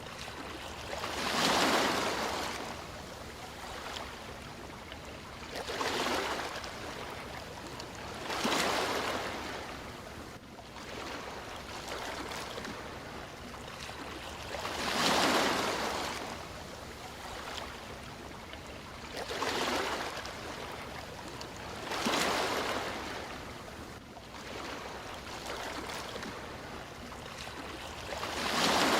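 Sea waves breaking and washing in over a steady hiss of surf. Seven surges come a few seconds apart, at uneven intervals.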